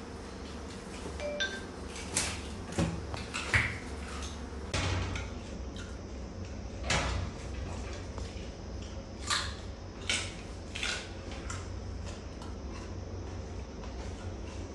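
Chimpanzee mother and infant shifting about and handling food on a tiled window ledge: scattered short clicks and knocks, a cluster a couple of seconds in and more around the middle, over a steady low hum.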